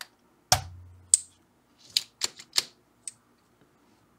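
A spring-loaded solder sucker (desoldering pump) fires with a sharp snap about half a second in, drawing old solder out of an amp-board eyelet. Several lighter clicks and clacks of the tool follow.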